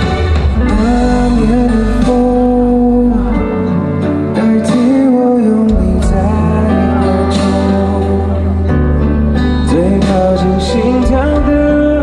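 A pop ballad sung by a male singer over guitar and a heavy bass, played loud through a concert sound system.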